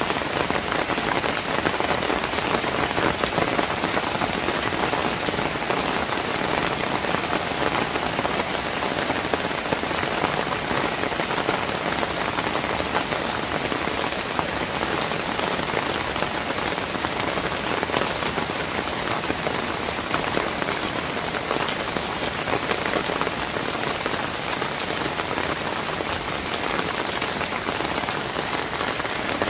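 Steady rain falling on wet pavement, a dense even patter of many individual drops.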